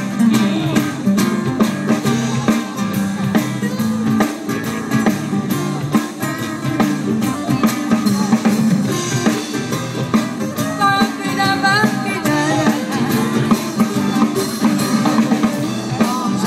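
Live band playing a song: strummed acoustic guitars, congas and drum kit with saxophone and singing.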